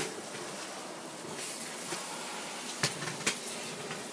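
Handling noise from a camera being taken down and carried: a steady hiss with two sharp clicks about three seconds in.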